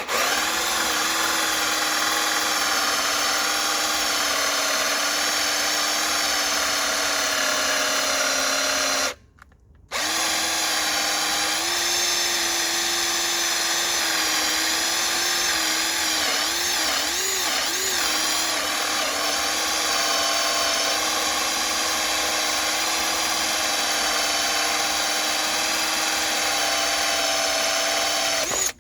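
Bauer cordless drill motor running at its high speed setting, driving a hole saw through wood, with a steady whine. It stops for about a second some nine seconds in, then starts again, and its pitch wavers under load a little past halfway.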